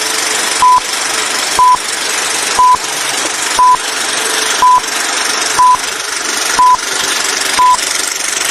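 A short, high electronic beep repeating about once a second, each beep the same single pitch, over a steady hiss.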